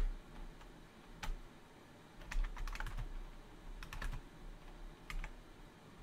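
Computer keyboard being typed on: short clusters of key clicks spaced a second or so apart, over a faint low hum.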